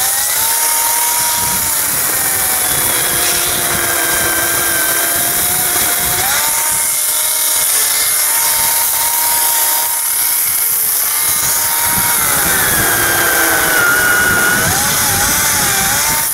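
Ryobi 40V 14-inch brushless battery chainsaw running at speed with a steady electric whine. The pitch drops each time the chain bites into the spruce limbs and climbs back when the cut frees, several times over.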